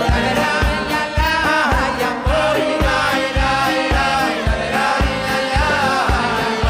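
A live band playing a Hasidic-style tune: a drum kit keeps a steady beat of about two strokes a second under keyboard and guitar, while clarinet and violin carry a gliding, ornamented melody.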